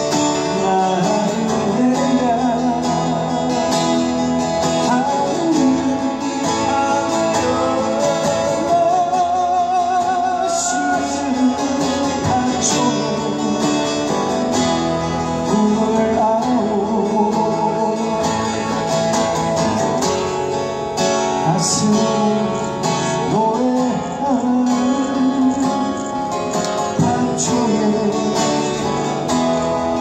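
Live acoustic duo: two acoustic guitars strummed and picked together, with a man singing over them.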